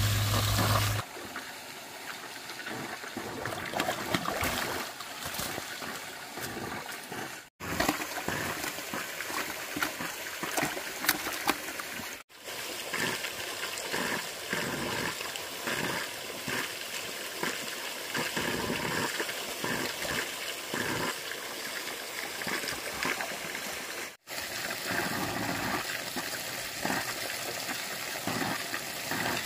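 Water trickling and splashing, with many small splashes over a steady wash. A low steady hum fills the first second, and the sound drops out briefly three times.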